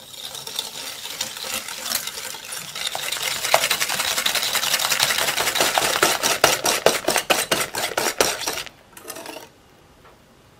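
Wire balloon whisk beating egg yolks and granulated sugar in a glass bowl, the wires scraping and clicking against the glass in quick, even strokes of about five a second. This is the stage of whipping the yolks and sugar until pale. The beating stops about nine seconds in, after one brief last stir.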